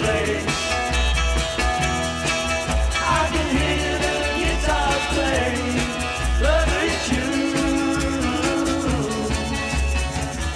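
1964 beat-group pop recording: electric guitars, bass and drums playing at a steady beat, with a sung vocal line over them.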